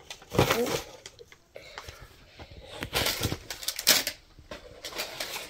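Paper booklets and plastic bags of Lego parts rustling and clattering as the set is unpacked, with scattered light clicks and one sharp knock about four seconds in.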